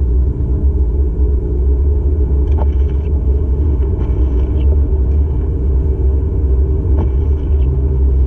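Steady low road and engine rumble of a car being driven, heard from inside the cabin, with a couple of faint clicks.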